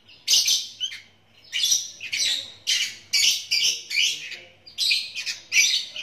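Young sooty-headed bulbuls (kutilang), about five weeks old, calling over and over with short, harsh, rasping calls, about two a second.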